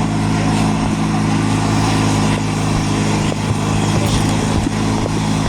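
Vehicle engine running at a steady speed: an even, low hum that stays at one pitch, with a few faint clicks.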